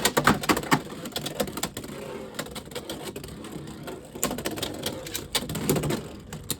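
Two Beyblade X spinning tops, Unicorn Sting and Viper Tail, clicking and rattling against each other and the plastic stadium just after launch. The clashes come thick and fast in the first second, then thin out into lighter rattling with a few sharper hits.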